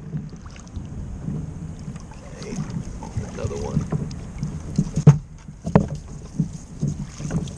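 Gear being handled aboard a kayak: the crab-trap rope and buoy rub and knock against the hull and bucket in irregular low thumps, with two sharp knocks about five and six seconds in. Wind buffets the microphone.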